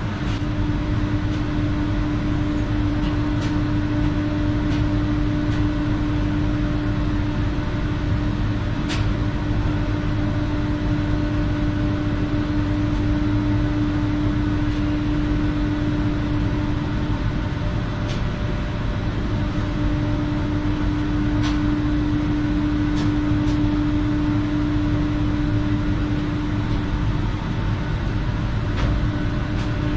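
A steady machine hum with low rumble and a constant mid-pitched tone. The tone drops out briefly a little past the middle and then returns. A few faint, scattered clicks sound over it.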